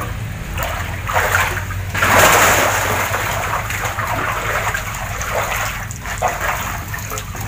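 Water splashing and sloshing in a shallow concrete catfish tank as a man wades through it and sweeps a hand net through the water, in uneven surges. The biggest splash comes about two seconds in, lasting about a second.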